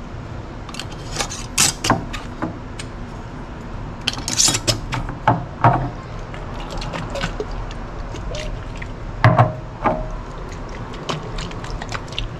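Metal lids and screw bands clinking and scraping on glass mason jars as they are closed, with irregular knocks of the jars being picked up and set down; a couple of the strokes ring briefly.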